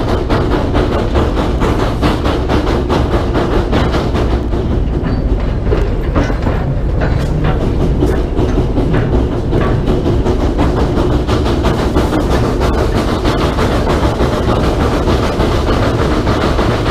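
Narrow-gauge steam locomotive under way, its exhaust chuffing in a fast, steady beat over the rumble of the wheels on the rails.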